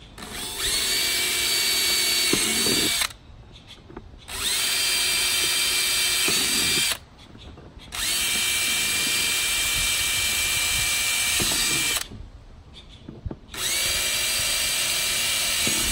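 Makita cordless drill running in four bursts of a few seconds each, its motor whine rising as it spins up at the start of each, as the bit drills mounting holes into a battery box.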